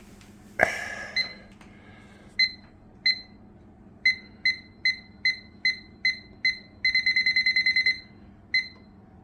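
Microwave oven keypad beeping as the cook time is entered: short single-pitch beeps, one per button press, about two a second, then a quick run of about ten beeps near the end. A sharp knock comes just before the first beep.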